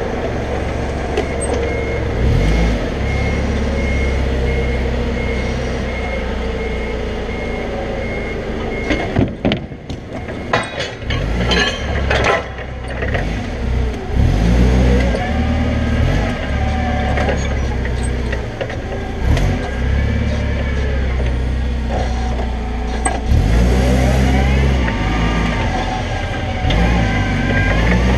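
Toyota forklift's engine running and revving up and down repeatedly as it drives and works. A high reversing beeper sounds for the first several seconds, and a quick series of metal clanks comes about ten seconds in.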